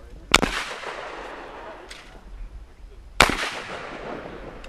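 Two shotgun shots about three seconds apart, each a sharp blast followed by a long echoing decay.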